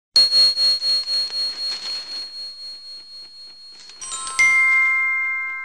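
Intro logo sting of bright chimes: a high ringing tone that pulses about four times a second and slowly fades, then a few quick chime notes about four seconds in and a louder bell-like strike whose chord rings on.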